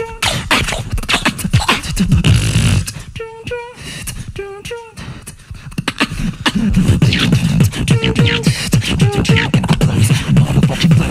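Two-person tag-team beatbox routine: short pitched vocal notes over mouth percussion, thinning out near the middle. A dense, bass-heavy beat kicks in about six and a half seconds in.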